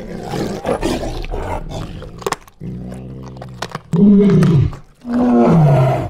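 Tiger growling and roaring over its kill: rough growls for the first half, then two loud roars, each falling in pitch, near the end.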